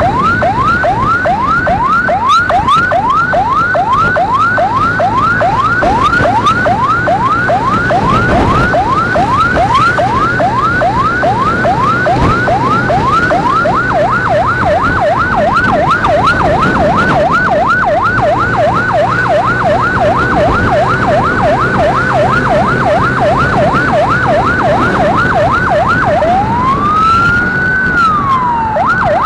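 Emergency-vehicle electronic siren in rapid yelp mode, sweeping up about three times a second. Near the end it switches to one slow rise and fall before yelping again, with a motor and road noise underneath.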